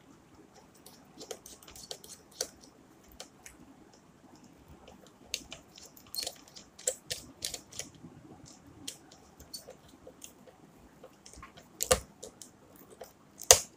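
Small clicks and taps of hands working a red wire into a miniature circuit breaker's terminal, the wire and fingers knocking against the plastic breaker and the terminal block, with two sharper knocks near the end.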